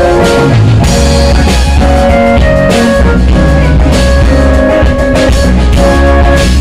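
Live rock band playing loudly: drum kit, electric guitar and keyboard over heavy bass.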